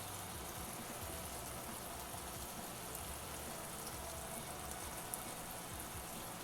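Chicken curry simmering in a pan, a steady faint bubbling sizzle. Most of its liquid has cooked off and the oil is starting to separate.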